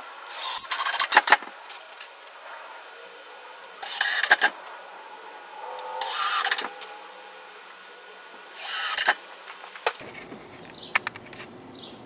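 Cordless power driver driving screws into 3/4-inch plywood in four short bursts, each under a second, the first one stuttering on and off.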